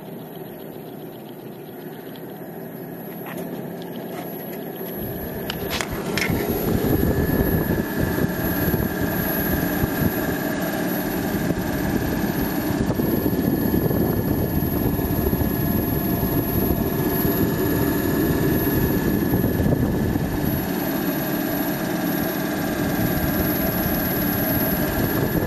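12-volt DC radiator car fan running inside an evaporative swamp cooler, a steady rush of air that grows much louder about five seconds in and stays loud, with a steady high tone over it. A few light clicks come just before the rise.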